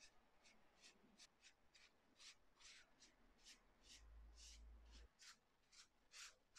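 Silicone pastry brush swishing melted butter across raw bread dough: faint, soft strokes at about two a second. A brief low hum comes in about four seconds in and cuts off a second later.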